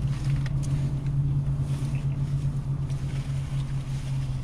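Steady low hum of a car's engine idling, heard inside the cabin, with a few faint rustles of sandwich wrapper paper.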